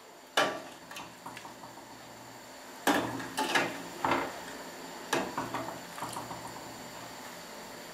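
Metal slotted spoon skimming the foam off simmering chicken broth: several sharp clinks as it knocks against the stainless steel pot and a glass plate, over the quiet steady bubbling of the pot.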